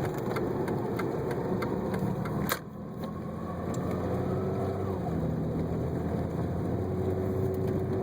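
Jeep Grand Cherokee ZJ's 4.0-litre straight-six running steadily while driving through snow, heard from inside the cabin. There are light ticks about every half second for the first two seconds, a sharp click about two and a half seconds in, and a faint rising whine a little later.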